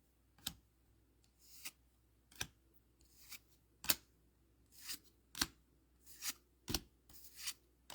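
Dragon Ball Z trading cards being flipped through one at a time. Each card slides with a brief swish and lands with a sharp snap, about eleven in all, roughly one every three-quarters of a second.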